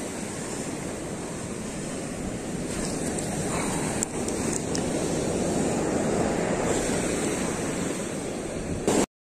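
Surf washing onto a sand beach, with wind buffeting the microphone. A few sharp clicks come about four seconds in, and the sound cuts off suddenly near the end.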